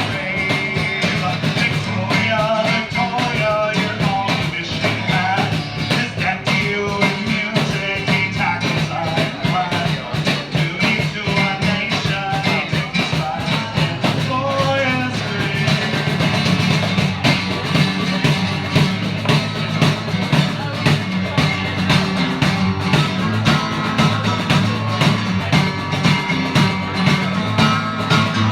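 Accordion and percussion playing an instrumental passage of a rock song with no vocals. A wavering melody carries the first half, and a steady, regular beat comes through more strongly from about midway.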